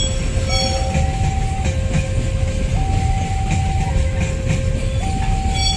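Long freight train of open-top coal wagons rolling past with a steady low rumble of wheels on rail. Over it, a two-note electronic warning tone alternates high and low, each note lasting about a second.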